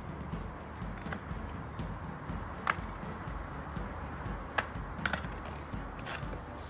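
A few sharp taps spread over the second half as a paper-plate pancake is tossed with a frying pan and lands on stone paving, over a steady low background noise.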